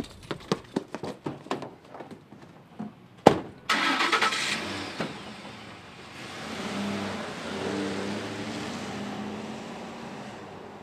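Quick running footsteps on pavement, then a single loud bang like a vehicle door slamming about three seconds in. A Ford pickup truck's engine cranks and starts, then runs as the truck drives away, swelling and then fading.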